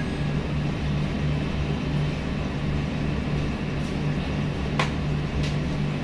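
LG front-loading washing machine running at the start of a test wash cycle while it fills with water: a steady low hum pulsing about twice a second, with one faint click near the end.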